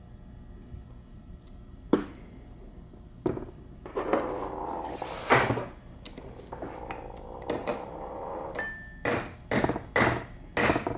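Ball-peen hammer tapping a sealant-coated vent cap into the aluminium case of a Borg-Warner T5 transmission: after some clatter of handling, a run of sharp metallic taps, about two a second, near the end.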